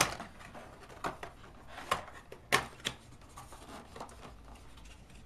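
A small cardboard box and a plastic tray being handled: several sharp taps and clicks, the loudest about two and a half seconds in, with light scraping and rustling of cardboard as the tray slides out.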